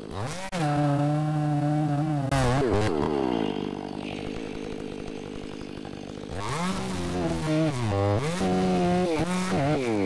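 Stihl MS 500i fuel-injected two-stroke chainsaw cutting the felling notch in a tree trunk: it revs up to full throttle and holds for about two seconds, drops back to idle, then revs up and cuts again from about six seconds in, with a brief dip in pitch near eight seconds.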